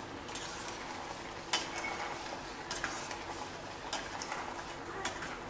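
Spatula stirring vermicelli in a stainless steel pot of simmering sugar syrup: a steady bubbling hiss with about four short clinks or scrapes of the spatula against the pot.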